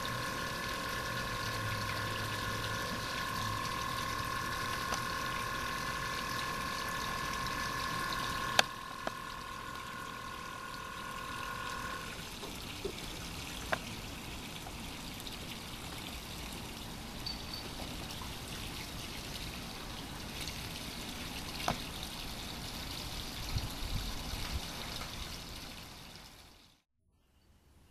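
Air-gate pump of a boat's floating barnacle-barrier enclosure running with a steady whine over water bubbling and trickling as air escapes from the rear of the enclosure. The whine cuts off about twelve seconds in, when the pump is unplugged, leaving the water bubbling with a few small clicks.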